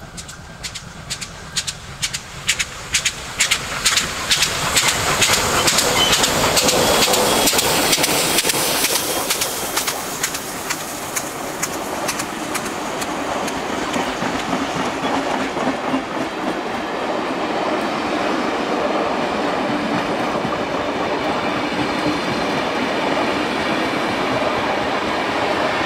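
Steam locomotive 5917, a 59 class 2-8-2, approaches and passes with its exhaust beating in a quick, even rhythm of about two to three chuffs a second, growing loud. It then gives way to the steady rolling and clickety-clack of its passenger carriages' wheels over the rail joints as the train runs by.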